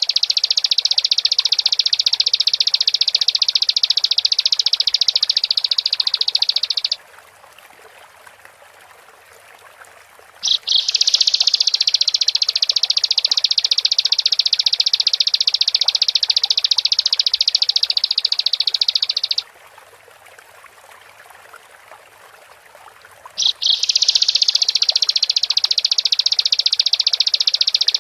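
Bar-winged prinia (ciblek) singing long, rapid, high-pitched trills, each about eight seconds, with pauses of three to four seconds. The song breaks off about seven seconds in, starts again around ten seconds, stops near nineteen seconds and resumes near twenty-three seconds.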